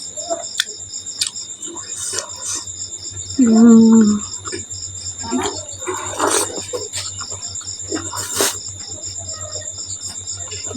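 Close-up mouth sounds of chewing soft momo dumplings, with wet smacks and clicks, and a short hummed "mm" about three and a half seconds in. Crickets chirp steadily in a rapid, even pulse behind it.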